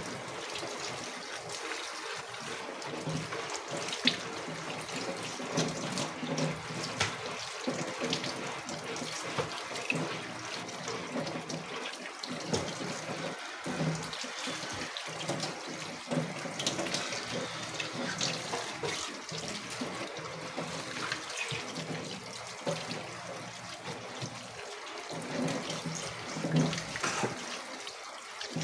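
Kitchen tap running into a sink while raw chicken is rinsed by hand under the stream, with uneven splashing and small knocks throughout.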